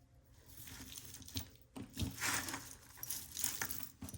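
Costume jewelry being handled and sorted by hand: small metal clinks of chains and pieces, with rustling in between.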